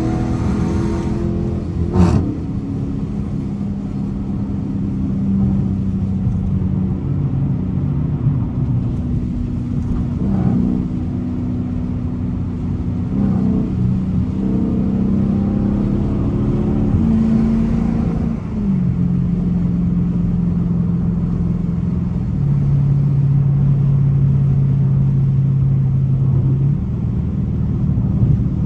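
Dodge Challenger R/T's 5.7-litre Hemi V8 heard from inside the cabin at highway speed, its drone changing pitch in steps several times as engine speed rises and falls, over steady road noise. A single sharp knock about two seconds in.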